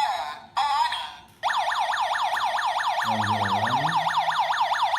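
A few short warbling electronic beeps, then about a second and a half in a smart home alarm system's siren starts: a loud, continuous electronic wail sweeping rapidly up and down about six times a second. It is the alarm going off because the motion sensor has been triggered.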